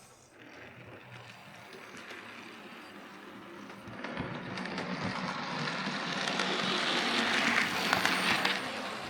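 Hornby OO gauge Merchant Navy model locomotive running along the track, its motor and gears whirring with a slight grinding from the brass gear, getting steadily louder as it approaches and passing closest near the end.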